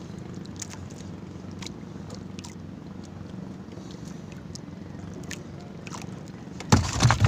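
A steady low hum from a small boat on open water, with scattered faint taps and clicks as a needlefish is handled. A loud bump and rustle comes near the end.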